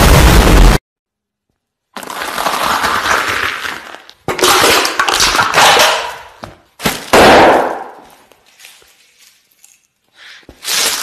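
Explosion sound effect, very loud and distorted, standing in for an enormous fart; it cuts off abruptly less than a second in. After a short pause come several harsh, noisy bursts lasting a second or two each.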